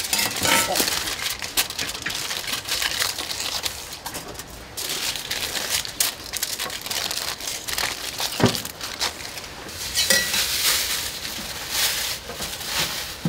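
Aluminium foil crinkling and rustling as toast sandwiches are wrapped by hand, irregular and continuous, with a single sharper knock partway through.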